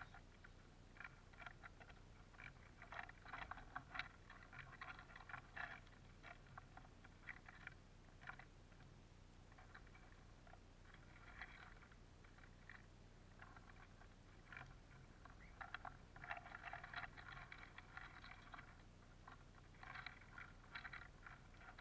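Small finches pecking and scrabbling in a tray of black sunflower seeds: irregular runs of quick, faint clicks and crackles. The busiest runs come about a third of the way in and again after the middle.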